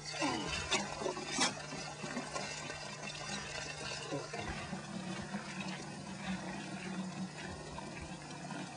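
Spring water running steadily from open pipe spigots and splashing onto the gravel below, with a couple of sharp knocks about a second in as a filled plastic water jug is lifted away from the flow.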